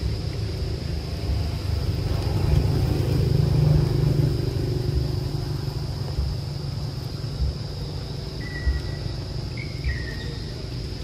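Outdoor ambience: a steady high-pitched insect drone over a low rumble that swells a few seconds in, with a couple of short high chirps near the end.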